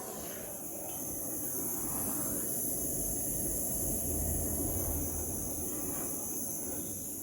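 Gas torch flame hissing steadily over a low rumble while heating a steel steering rod, a little louder in the middle.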